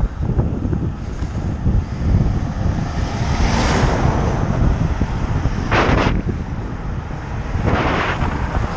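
Wind rumbling on a cyclist's camera microphone while traffic passes close alongside: a lorry goes by about four seconds in, then short rushes of tyre and engine noise near six and eight seconds as cars overtake, the last one a car passing very close to the bike.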